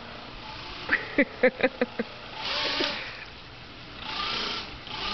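A battery-powered RC catamaran boat's electric motor and propeller whirring in two short bursts as it is throttled up, with a brief burst of laughter about a second in.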